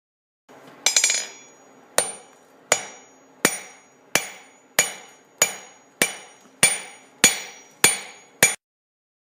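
Blacksmith's hand hammer striking steel on an anvil while forging. A quick double strike about a second in, then a steady run of eleven ringing blows, roughly one and a half a second, that stops abruptly.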